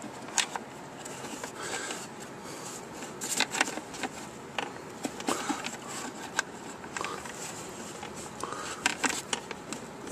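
Hands working among wires and a battery hold-down strap in a snowmobile engine bay: scattered light clicks, taps and rustles of plastic and cable.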